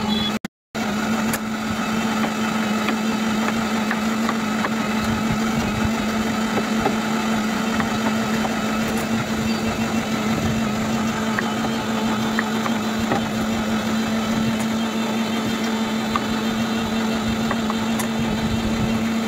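Steady mechanical hum with one strong low tone and fainter overtones, unchanging throughout, with a few faint clicks on top; it drops out briefly about half a second in.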